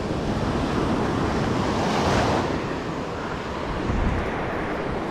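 Gulf surf breaking and washing up the beach, with one wave swelling loudest about two seconds in. Wind buffets the microphone with a low, uneven rumble.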